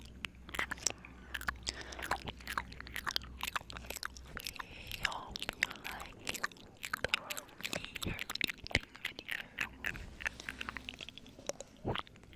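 ASMR 'ear eating' mouth sounds close to the microphone: a dense, irregular run of quick wet clicks and smacks.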